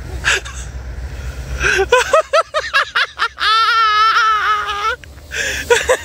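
A person laughing hard: a quick run of short bursts, then one long, high-pitched, wavering laugh. A low engine rumble sits underneath in the first couple of seconds.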